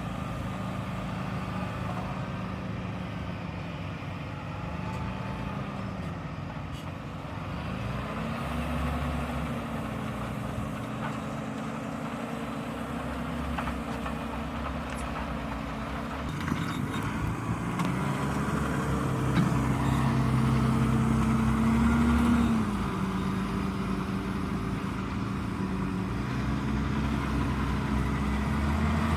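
Valtra Q Series tractor's diesel engine running under ploughing load, its engine speed dipping and rising several times. It grows louder for a few seconds past the middle, then drops back suddenly.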